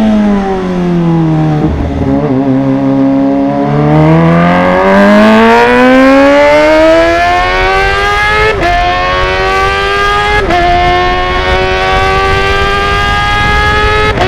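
Kawasaki ZX-25R's inline-four engine through a Villan Z1 underbelly exhaust, dropping in revs, then pulling hard and climbing in pitch. It makes two quick upshifts, about eight and a half and ten and a half seconds in, and keeps rising after each one.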